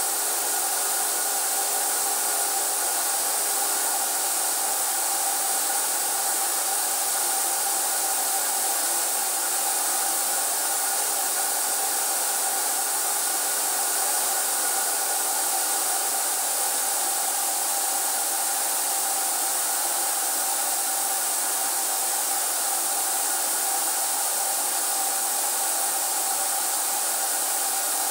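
HVLP turbine paint sprayer running steadily: a constant blower whine over a loud hiss of air, unchanging throughout.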